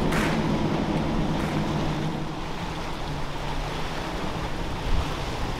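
Motorboat engines running with a steady low hum, over the wash of water and waves; a brief low thump near the end.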